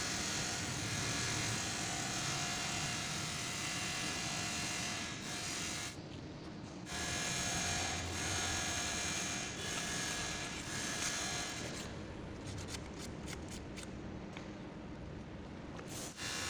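Steady buzzing hum of a small electric motor, broken off briefly about six seconds in, with a run of light clicks in the second half.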